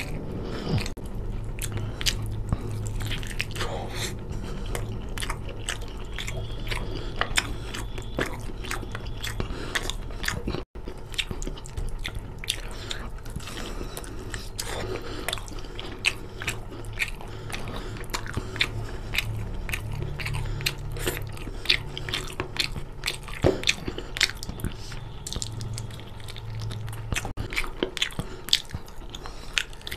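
Close-miked chewing and biting: a man eating chicken curry and rice by hand, tearing meat off a chicken drumstick, with many quick wet mouth clicks and smacks.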